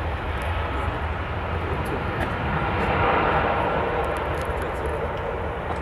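Jet engines of an Airbus A320-family airliner running at high power as it rolls along the runway: a steady rushing noise over a deep rumble.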